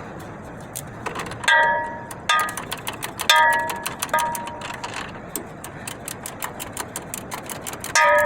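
Hand tools working the adjusting nuts on a 1954 Ford F100's parking brake cable, taking up slack: a run of quick clicks broken by about five short ringing metal clinks.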